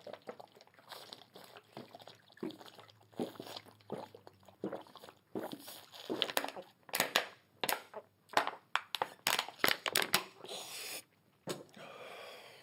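Irregular crinkling and clicking of something being handled, sparse at first and growing busier and louder about halfway through, then easing off near the end.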